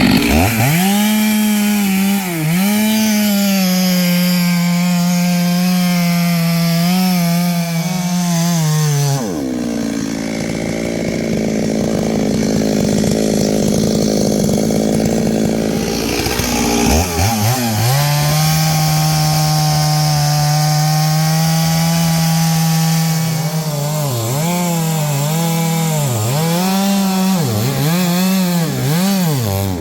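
Stihl two-stroke chainsaw at full throttle cutting into wood, the engine note held steady under load. About nine seconds in it drops back to idle for several seconds, then revs up and cuts again. Near the end it is blipped up and down in quick swells, several times.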